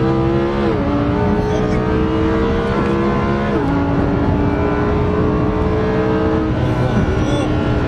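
Lamborghini Huracán V10 at full throttle, heard from inside the cabin. The engine note climbs steadily through the gears, and quick upshifts drop the pitch about a second in and again about three and a half seconds in.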